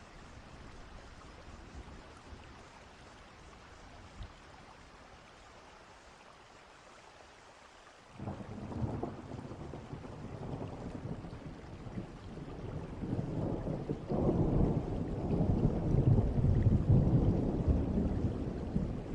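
Thunderstorm: soft steady rain, then about eight seconds in thunder breaks in with a sudden crack and rumbles on, growing louder about six seconds later and still rumbling at the end.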